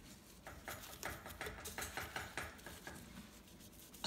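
A cloth rubbing and wiping the base of a KitchenAid stand mixer, cleaning off loosened grime: a quick run of short scrubbing strokes for the first couple of seconds, then fainter, with a single click near the end.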